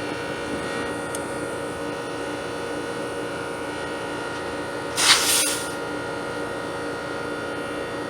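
Steady hum of a running air-conditioning system. About five seconds in, a brief sharp hiss of R-410A refrigerant spurting from a service port as a gauge hose coupling is worked on it.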